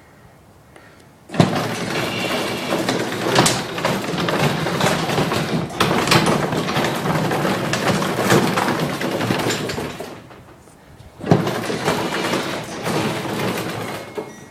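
Garage door opener running with the door moving, a loud rattling that starts suddenly, runs for about nine seconds and stops. About a second later it starts again for a few seconds.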